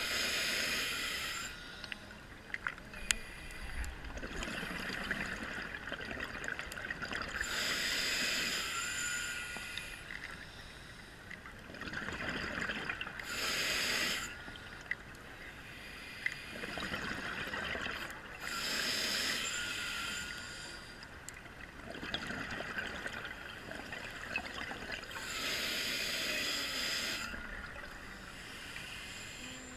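A scuba diver breathing through an open-circuit regulator underwater: five bursts of exhaled bubbles rush past, about every five to six seconds, with a quieter hiss between them.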